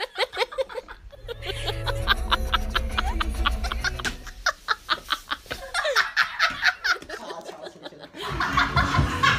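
A person snickering in quick, rapid pulses of laughter over background music with a bass line. The music swells louder near the end.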